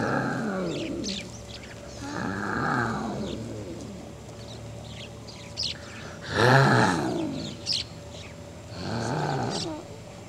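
An animal calling again and again: four drawn-out low calls of about a second each, each falling in pitch, two to three seconds apart. Small birds chirp over them.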